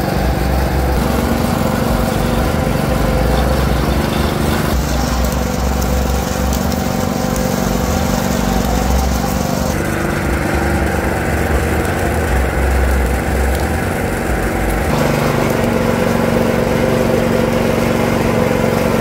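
Small engine running steadily under load, driving the steel rollers of a sugarcane juice press as cane stalks are fed through. The sound shifts abruptly a few times.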